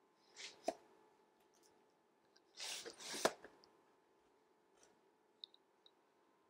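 Quiet handling noises: two brief scrapes, each ending in a sharp click, about half a second in and about three seconds in, then a couple of faint ticks near the end.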